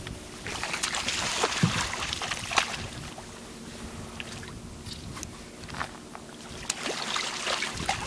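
Water sloshing and splashing around gulls feeding at the surface, in short sharp bursts, with wind buffeting the microphone and a faint steady low hum underneath.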